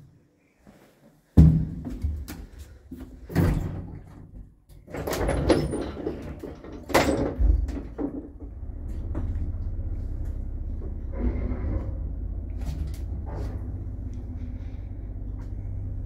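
Passenger lift doors shutting with a loud slam and a run of clanks and knocks, then the car setting off downward with a steady low motor hum.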